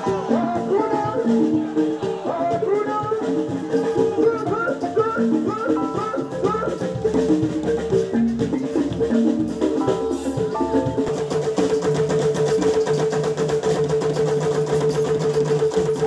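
Live music: a singer on a microphone over drums and percussion. About eleven seconds in the singing stops, and the drumming carries on under a steady held note.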